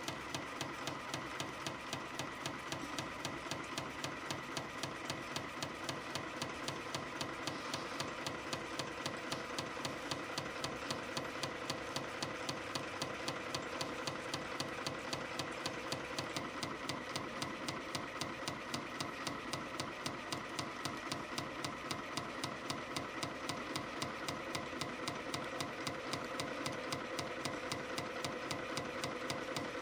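CF-310 CNC spring coiling machine running, coiling 0.6 mm wire into variable-diameter compression springs: a fast, steady mechanical clatter of regular clicks, with louder beats about two to three times a second over a steady whine. It starts suddenly.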